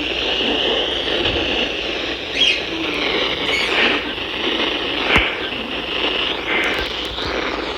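Steady hiss of static from a weather radio receiver on a weak signal, with wind rumble on the microphone and one sharp click about five seconds in.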